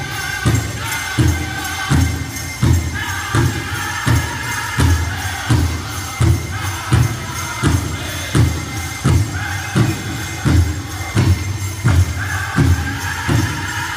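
Powwow drum group playing a chicken dance song: a big drum struck in a steady beat, a little over one beat a second, under group singing, with bells jingling throughout.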